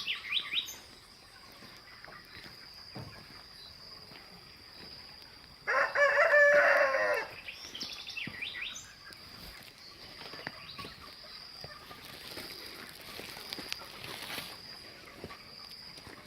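A rooster crows once, a loud call of about a second and a half near the middle, among faint clucking and chirping of chickens.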